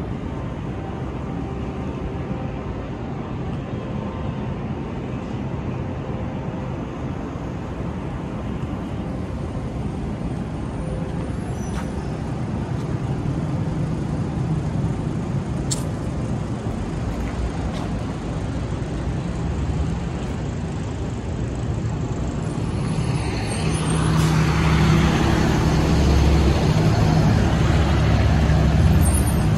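City street traffic: a steady rumble of engines and tyres. About 23 seconds in a heavy vehicle passes close by, louder and deeper, until the end.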